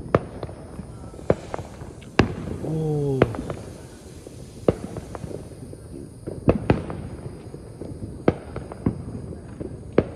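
Firecrackers and fireworks going off around a neighbourhood: sharp bangs at irregular intervals, a dozen or so, over a steady background crackle of further pops.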